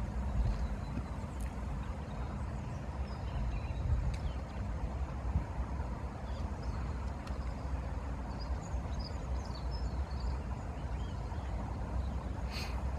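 Steady low outdoor rumble with small birds chirping now and then, mostly in the second half, and a single click near the end.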